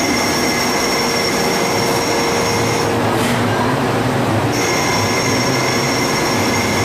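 Haas ST30 CNC lathe turning a metal part, with a steady high-pitched whine from the cut over the running machine. The whine breaks off about three seconds in and comes back about a second and a half later as the next cut starts.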